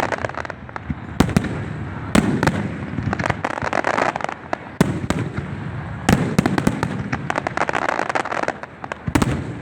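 Fireworks going off: several sharp bangs a second or more apart, over continuous crackling.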